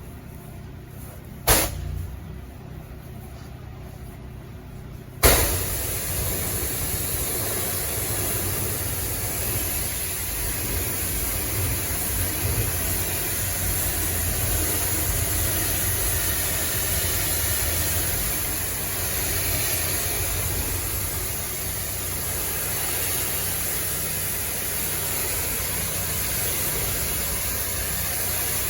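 DeWalt 3.5 GPM pressure washer engine running, with one sharp knock about a second and a half in. About five seconds in the spray opens and a loud, steady hiss of the freshwater rinse jet runs over the engine hum.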